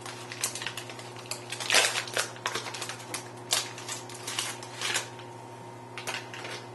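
Foil wrapper of an Instax Wide film pack crinkling and rustling as it is handled and pulled open, in irregular crackles that are loudest about two seconds in and thin out after about five seconds.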